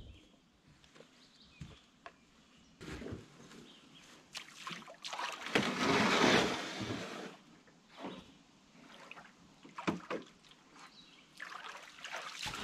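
A canoe and gear being handled at the water's edge: scattered knocks and clunks, with a longer swell of scraping, sloshing noise about six seconds in.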